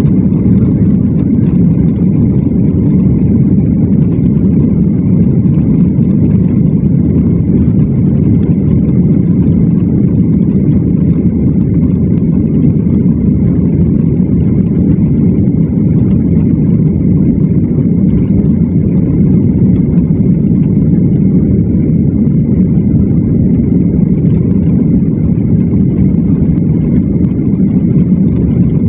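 Steady, loud low rumble of a flydubai Boeing 737's jet engines and rolling noise heard inside the cabin while the aircraft moves along the ground, with a faint steady whine above it.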